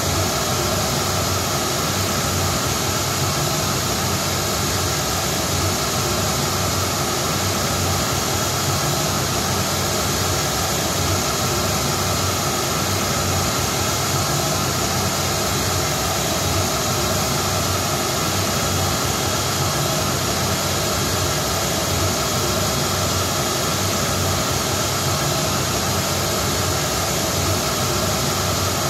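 Steady pink-noise test signal played through a JBL SRX loudspeaker system, used as the measurement signal for tuning the PA with Smaart.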